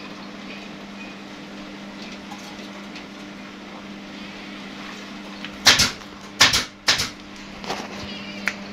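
A steady low hum, and a little past halfway three or four short, loud scrapes in quick succession, followed by a few light clicks.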